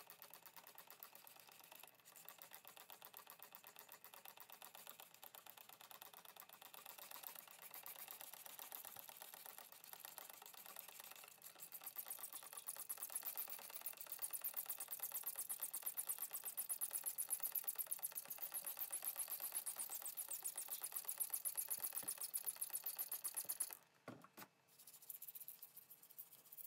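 Brush scrubbing the inside of a Fiat 126 BİS starter motor's field-coil housing to clean off oil and dirt: rapid back-and-forth bristle strokes on the metal, louder from about halfway through, pausing briefly near the end.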